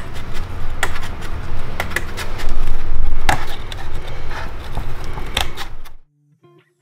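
Large scissors cutting through cardboard: a crunching, rasping noise broken by sharp snips every second or so. It stops abruptly about six seconds in.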